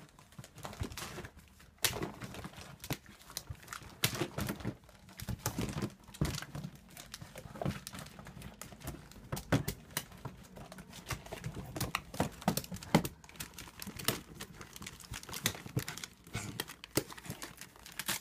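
Plastic storage bin and the wrapping-paper rolls inside it rustling and crinkling, with irregular scrapes and knocks, as a small dog clambers into the bin and turns around in it.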